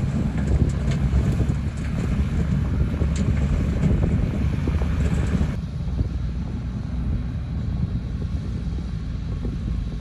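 Diesel engine of a loaded dump truck running as the truck drives, mixed with wind rumbling on the microphone. Around the middle the sound changes abruptly and becomes duller.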